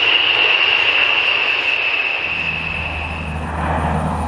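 A formation of A-10 Thunderbolt II jets passing overhead with the high, slightly falling whine of their TF34 turbofans. About two seconds in, the whine fades as the steady low drone of a C-130 Hercules's turboprops comes in.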